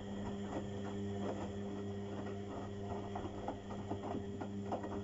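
Beko washing machine running, its motor giving a steady hum while the slowly turning drum makes soft, irregular knocks and patter from the laundry. The drum is tumbling abnormally slowly.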